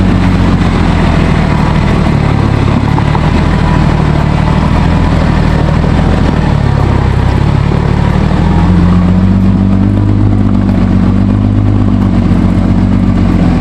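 Vehicle engine running steadily at low revs, its pitch rising a little about two-thirds of the way through and then easing back.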